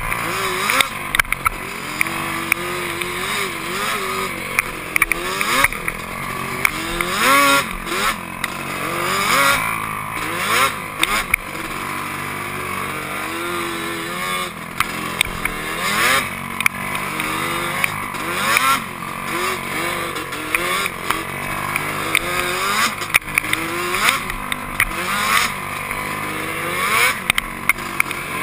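Yamaha Banshee quad's two-stroke twin engine revving up and down with the throttle while riding rough sand trails, its pitch rising and falling every second or two. Wind noise and frequent sharp knocks hit the camera microphone throughout.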